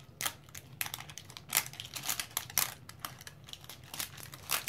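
Plastic wrapping of an L.O.L. Surprise ball crackling and tearing as it is peeled off in a strip, a run of irregular sharp crackles.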